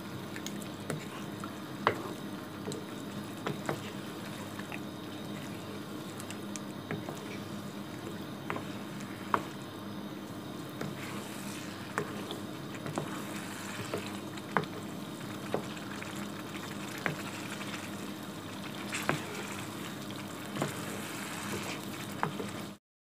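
Thick meat curry sizzling and bubbling in a pan while it is stirred with a wooden spoon, with irregular sharp clicks of the spoon knocking against the pan about once a second.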